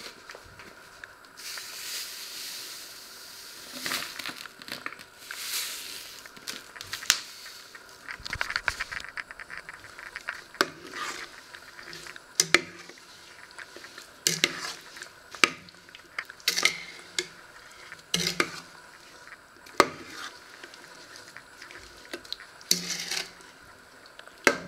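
Metal spoon stirring halved plums and sugar in a stainless steel pot, knocking and scraping against the pot's side in repeated sharp clinks. A soft hissing rush comes in the first few seconds.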